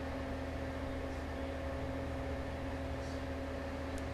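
Steady low machine hum of room tone with a few held tones in it, and a faint click near the end.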